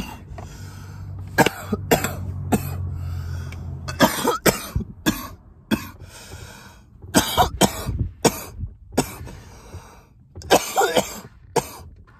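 A man coughing over and over, single coughs and short clusters of several in quick succession throughout, the coughing fit that follows a hit from a Delta-8 disposable vape.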